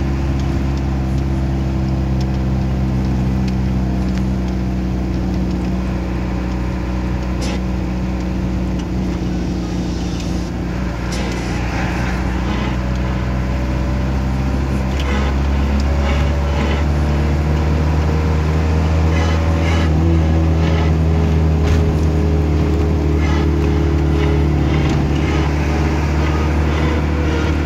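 A van's engine and tyres running steadily while driving, heard from inside the cabin as a low hum whose note shifts about halfway through as the speed changes, with occasional light rattles.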